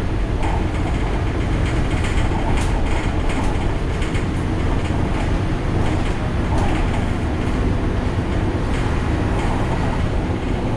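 Ikarus 435 articulated bus driving, heard from inside the cabin: its diesel engine running steadily along with road noise, and scattered rattles from the body.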